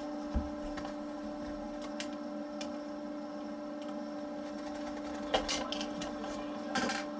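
Small clicks and light rattles of a screwdriver and sheet metal as the tuner shield of a portable TV is worked loose, over a steady electrical hum.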